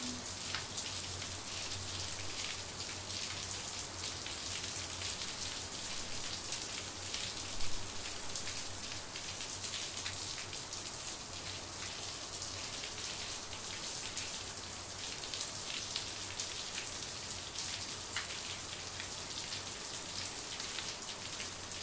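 Faint steady hiss with fine crackling throughout and a low hum underneath.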